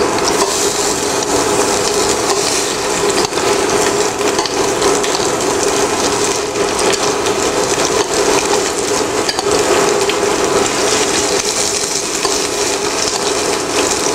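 Salmon pieces frying skin-down in hot oil in a frying pan: a steady sizzle with dense crackling, with light clicks of metal tongs as more pieces are set in. A steady low hum runs underneath.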